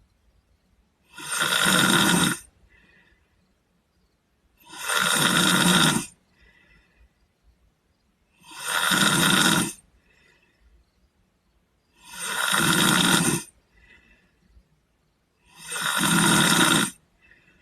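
A sleeping boy snoring. There are five loud snores at a steady pace, about every three and a half seconds, each lasting a little over a second, with a faint breath sound between them.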